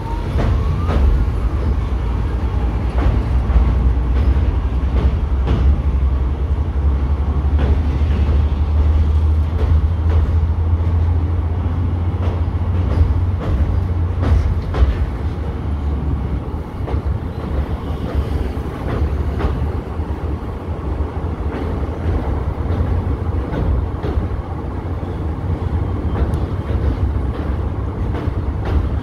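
ICF passenger coaches running on the track: a steady low rumble with scattered clicks and knocks from the wheels and rails. The rumble is heaviest in the first half and eases a little after about fifteen seconds.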